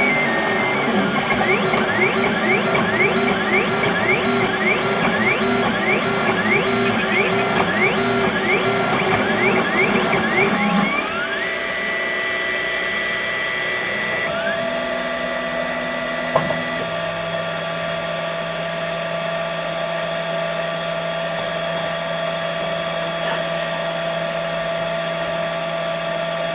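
XYZ da Vinci Mini W+ 3D printer running: its motors whine in quick, repeated rising chirps as the print head moves for about the first eleven seconds. Then it drops to a quieter, steady hum with a few single rising whines and one sharp click about sixteen seconds in.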